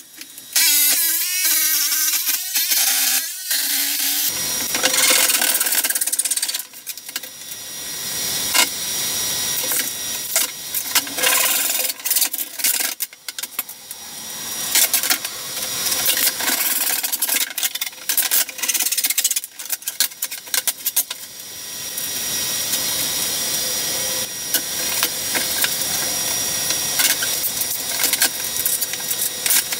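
Woodworking tool noise: power tools cutting and drilling plywood and timber battens, mixed with many sharp knocks and clicks of wood being handled.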